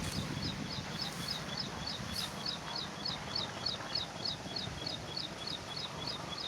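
A bird calling over and over, a short high chirp repeated about three times a second, over a steady low outdoor background.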